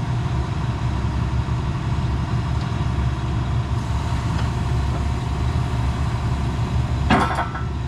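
CAT 336E excavator's diesel engine idling steadily, with one brief sharp noise near the end.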